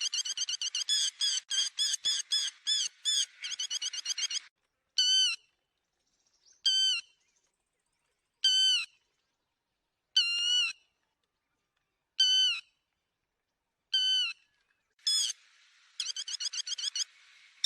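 Lapwing calls: a fast run of sharp, repeated calls, then single calls about every two seconds, then another fast run near the end.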